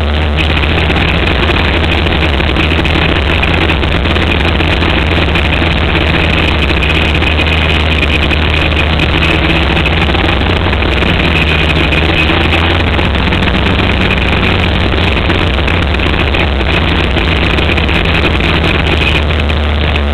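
600cc micro sprint car's motorcycle engine running hard through the laps of a dirt-track race, heard from a camera mounted on the car as a loud, steady drone.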